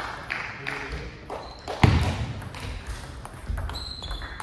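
Table tennis rally: the ball clicking off rackets and table in a quick, uneven run, with a loud thump about two seconds in.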